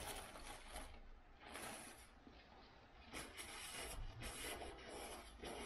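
Paper napkin rustling as it is pulled out and handled, in four or five short bursts.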